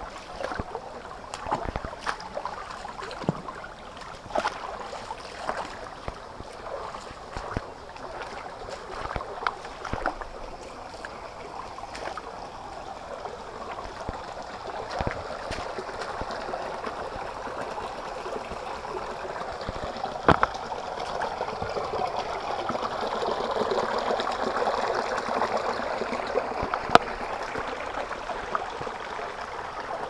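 Shallow rocky stream running over and between stones, a steady rush of water that grows louder a little past halfway, with scattered sharp clicks and a couple of louder knocks.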